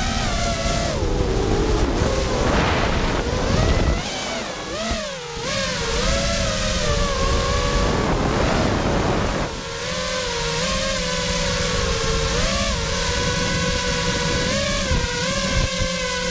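Motors and three-blade props of a 5-inch FPV quadcopter whining, the pitch rising and falling with the throttle. In the first four seconds heavy wind rush over the onboard camera's microphone covers the low end; later, in low fast flight, the whine is steadier with short rises.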